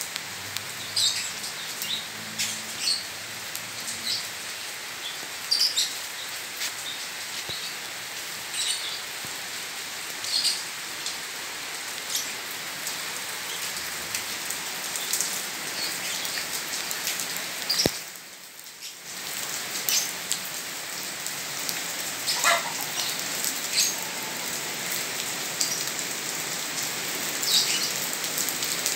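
Steady rain falling on a paved courtyard: an even hiss with scattered sharper ticks, dipping briefly a little under two-thirds of the way through.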